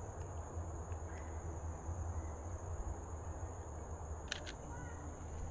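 Insects droning steadily at a high pitch, over a low rumble of wind on the microphone. About four seconds in comes a quick double click from a camera shutter as a photo is taken.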